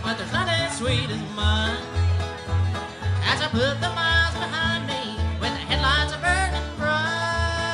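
A bluegrass band playing live: banjo and guitar over a steady bass line, with a man singing lead.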